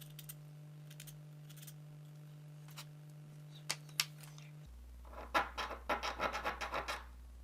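Rapid back-and-forth scratching strokes from hand work on a small diecast toy car body, coming in the second half after two light clicks.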